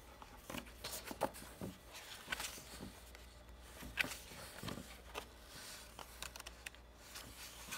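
Pages of a hardcover picture book being turned by hand: faint paper rustling with scattered light ticks and taps, the sharpest about four seconds in.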